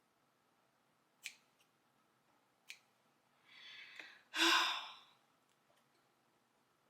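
A person lets out a heavy sigh near the end, with a breathy exhale just before it. Two short, sharp clicks come earlier.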